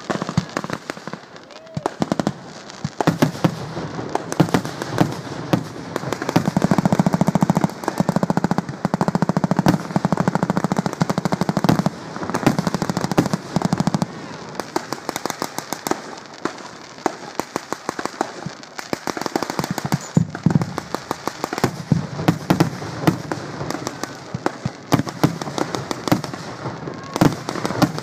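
Fireworks going off in a rapid, continuous string of bangs and crackles, densest for several seconds in the middle.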